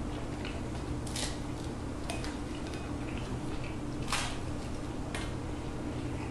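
Fork scraping and clinking against a plate while eating: a few short strokes spread a second or so apart, the strongest about four seconds in, over a steady low hum.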